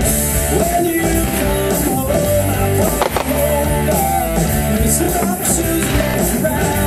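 Background music: a rock song with guitar and a steady beat.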